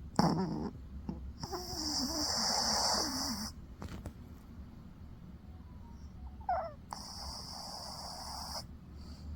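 A sleeping dog snoring: two long, wheezy, rasping snores about two seconds each, the first starting a second and a half in and the second starting past the middle, after a short sharp sound right at the start.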